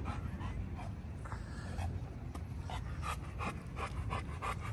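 A Rottweiler panting with its mouth open: quick, even breaths that grow stronger in the second half.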